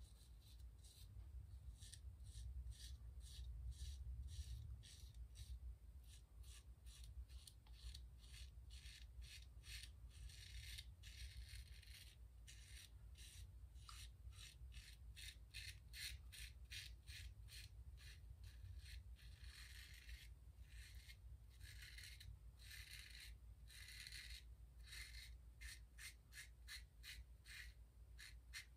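Ever Ready 1914 single-edge safety razor scraping through a day's stubble under lather on the first pass. It is a faint, quick run of short rasping strokes, a few a second, coming thicker from about ten seconds in.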